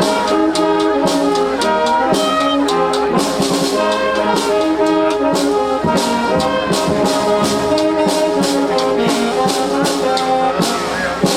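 High school wind band playing a lively piece, brass carrying the melody over a steady beat of percussion hits.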